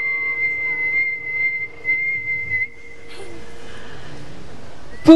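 A person whistling one long, high note that swoops up just before and is held steady for about two and a half seconds over a sustained guitar chord, then stops. A soft hiss of noise follows, and a sharp knock comes right at the end.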